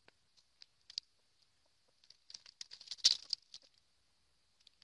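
A rooster scratching and pecking through dry leaf litter: scattered crackles and rustles, with a denser burst of crackling around three seconds in.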